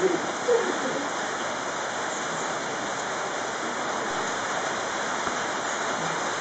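Steady rain falling: an even hiss that does not change.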